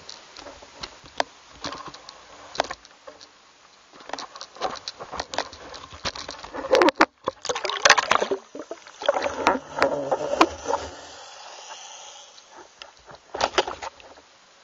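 Water splashing and knocking against a homemade underwater camera enclosure as the rig moves through the water's surface: a run of sharp clicks and knocks, densest and loudest from about halfway through, with more knocks near the end.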